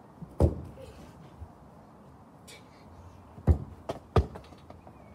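Dull thuds of a football being kicked: one strong thud about half a second in, then a couple more close together near the end.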